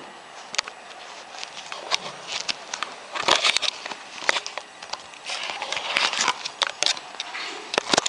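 Close handling noise: irregular sharp clicks and knocks with short rustling scrapes, busiest about three seconds in and again past the middle.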